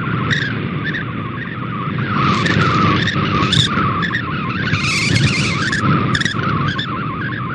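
MFSK64 digital image signal received on shortwave: a rapid warble of short tones hopping between about 1 and 2 kHz, over static hiss that swells and fades several times.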